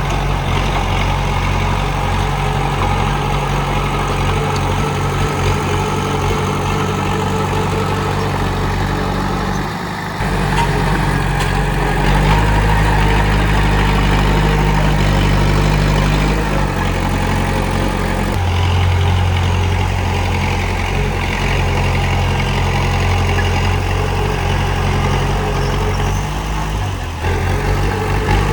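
Komatsu D31P bulldozer's diesel engine running steadily, its low note changing a few times as the load shifts, with short dips about ten seconds in and again near the end.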